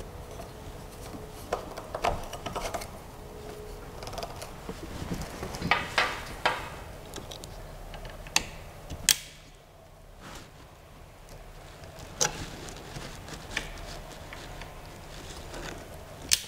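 Irregular clicks, taps and light knocks of metal parts and tools being handled while assembling a Creality CR-6 SE 3D printer's frame. A few sharp single clicks stand out in the second half.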